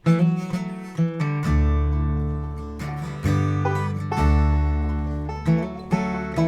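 Instrumental opening of a bluegrass song: acoustic guitar and banjo picking, with double bass notes coming in about a second and a half in.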